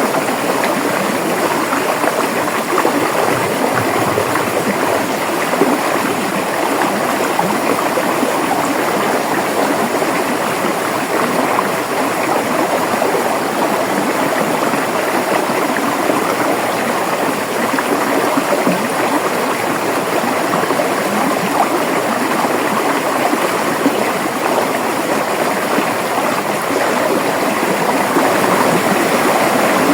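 River water flowing over stones: a steady, loud rushing and babbling that does not change.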